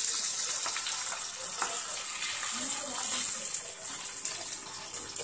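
Hot mustard-oil tadka sizzling as it hits coconut chutney, a steady hiss that dies down toward the end, with a few light taps of a wooden spatula stirring it in.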